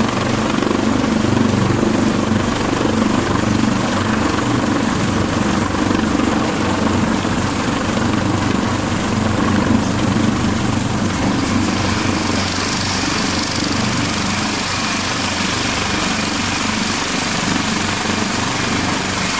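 Helicopter setting down on a helideck, its turbine engines and main rotor running steadily at full speed. About twelve seconds in the sound eases slightly and a thin high whine comes in.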